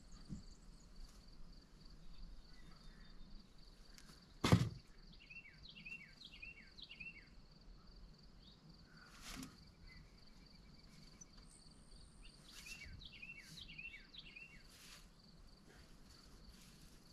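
Faint outdoor evening background: a steady high insect drone, with two short runs of quick falling chirps. A single dull knock about four and a half seconds in is the loudest sound.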